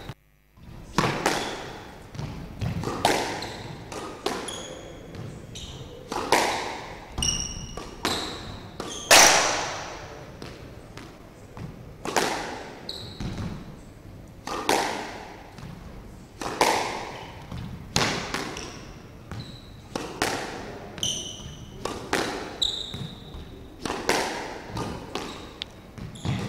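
Squash ball struck by rackets and smacking the court walls in a steady pre-match knock-up, a sharp hit every second or two, each echoing briefly in the enclosed court.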